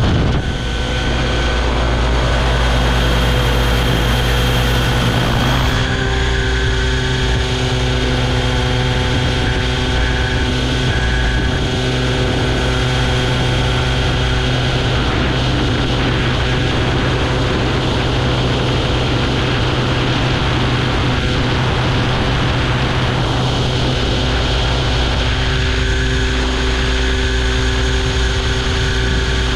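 Align T-Rex 700E electric RC helicopter in flight, heard from a camera mounted on its side: a steady whine from the electric motor and drive over the rotor blades and wind rush on the microphone. The whine's pitch shifts slightly about six seconds in and again near the end.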